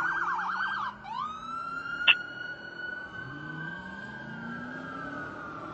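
Emergency-vehicle electronic siren on responding fire apparatus, in a very fast warble for the first second, then switching to a long wail that rises and slowly falls. A short, sharp blip about two seconds in is the loudest moment, and a vehicle engine revs up faintly underneath.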